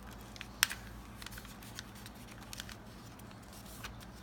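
A sheet of paper being folded and creased by hand: light rustles and crackles, with one sharper crackle about half a second in.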